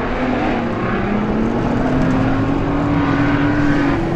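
Street stock race cars' engines running as a pack laps a dirt speedway oval, with one engine note rising steadily as a car accelerates.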